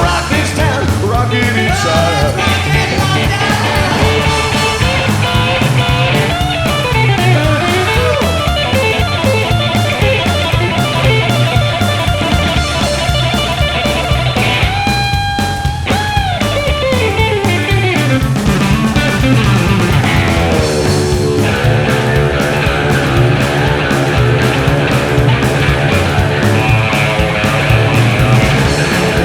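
Rock music led by electric guitar, with a long held note that bends downward about halfway through.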